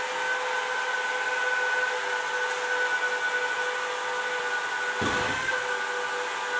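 Four counter-rotating shrouded propellers on an RC car, spun by brushless motors, running steadily with a high whine over a hiss of rushing air. There is a brief low thump about five seconds in.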